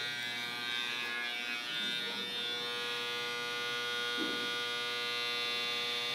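Corded electric hair clippers running with a steady buzz.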